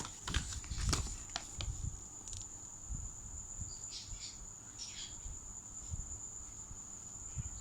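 Handling noises of unboxed papers and parts: several sharp clicks and taps in the first two seconds, then a few short rustles, over a steady high-pitched whine.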